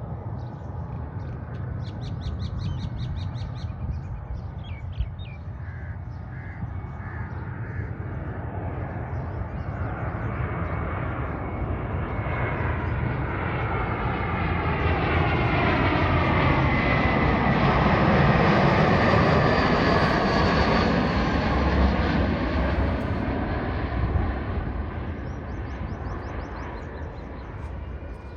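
Airbus A320 jet coming in to land. Its engine noise swells to a peak about two-thirds of the way through, with a whine that falls in pitch as it passes, then fades. Crows caw several times near the start and again near the end.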